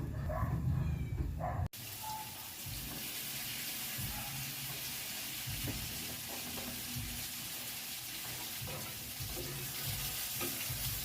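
A low rumble for the first second and a half, then after a sudden cut a steady sizzle of eggplant cooking for tortang talong, with a few faint knocks.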